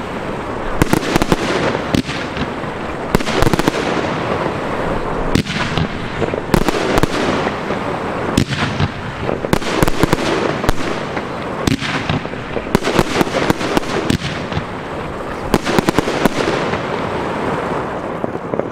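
Professional fireworks display: aerial shells bursting in a dense, continuous barrage, many sharp bangs in quick succession over a steady din of further reports.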